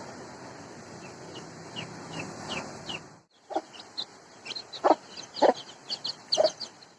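A steady hiss of rain with a few short falling chirps, then after a sudden break, chickens clucking in short separate bursts.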